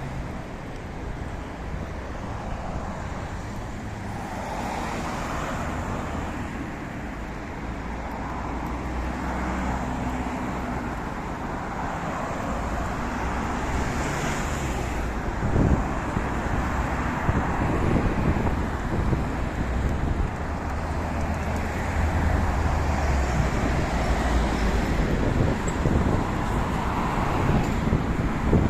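City street traffic: motor vehicles passing with a continuous engine hum and tyre noise, growing gradually louder, with a sharp knock about halfway through.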